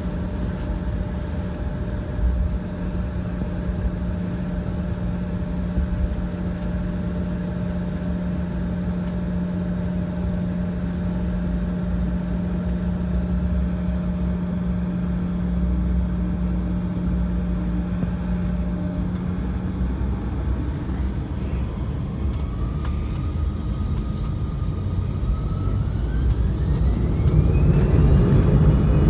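Embraer E175's twin turbofan engines heard inside the cabin: a steady hum while taxiing, then from about three-quarters of the way in a whine that rises in pitch as the engines spool up to takeoff power, getting louder near the end.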